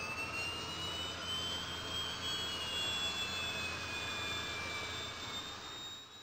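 Jet flyby sound effect over an intro logo: a steady rushing jet noise with whining tones gliding up and down across each other, fading out near the end.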